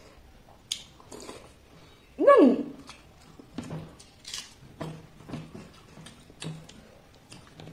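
Close-up eating sounds: crunchy chewing of raw red onion and wet squelches from a hand working soaked, watery rice, heard as a string of short crackles about twice a second. About two seconds in, a short vocal sound slides down in pitch and is the loudest thing.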